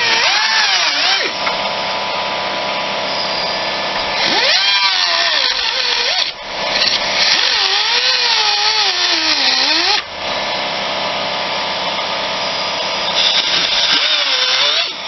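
Power tool with a cutoff wheel cutting through a fiberglass console. Its whine wavers in pitch as the wheel bogs and recovers under load, with brief let-offs about six and ten seconds in.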